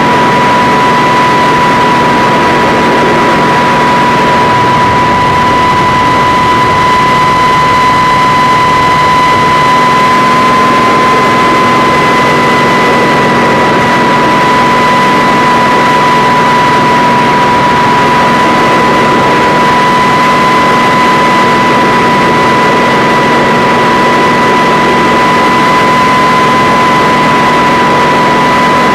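Kamov Ka-26 helicopter's twin radial piston engines and coaxial rotors running steadily and loudly, with a constant high whine over the engine noise.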